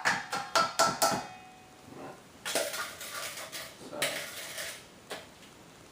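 A spoon knocking about five times in quick succession against a bowl, each knock ringing briefly, then scraping against the bowl as thick cookie dough is scooped out.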